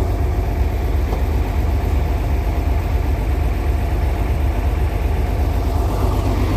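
Heavy diesel engine idling steadily, a deep, even sound with no change in speed.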